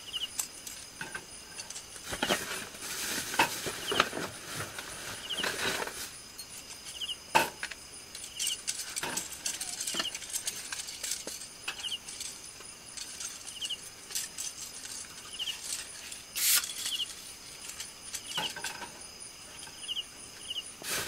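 Crickets and other night insects calling: a steady high buzz, with a short pulsed chirp every couple of seconds. Over it come knocks, clinks and rustles of camping gear being handled.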